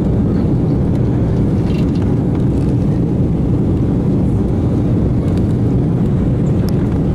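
Steady low roar of a jet airliner's cabin in flight: engine and rushing-air noise heard from a window seat, with a few faint clicks.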